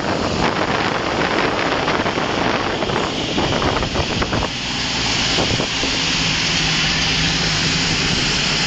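Wind buffeting the microphone from the open bed of a moving pickup truck, over the rush of its tyres on a wet road. About halfway through the buffeting eases into a steadier rushing noise, and a low steady hum joins it.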